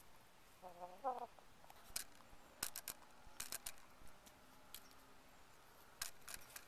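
Chicken giving a brief two-note cluck about a second in, followed by several quick clusters of sharp clicks and taps.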